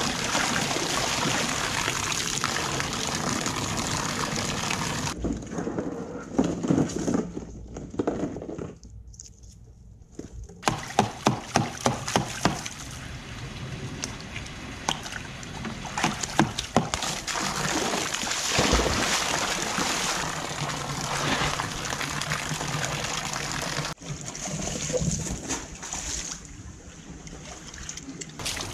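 Water splashing and sloshing as animals play in tubs, across several short clips: black bears thrashing in a tub with a hose pouring in, then sea otters rolling in a tub and a bucket. A run of sharp, loud splashes comes about eleven seconds in.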